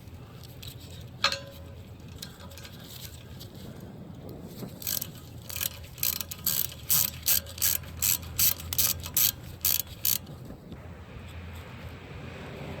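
Hand ratchet clicking in a quick, even run of about three clicks a second for some five seconds as a rear brake caliper bolt is turned out, with a single click about a second in.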